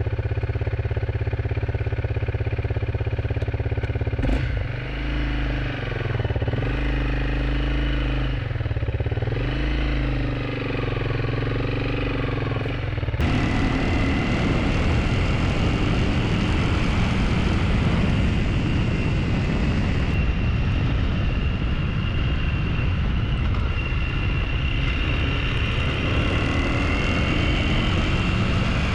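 Honda CRF300L motorcycle's single-cylinder engine running, its pitch rising and falling for several seconds as it is revved. About 13 seconds in the sound changes abruptly to a steady riding sound of engine and wind noise.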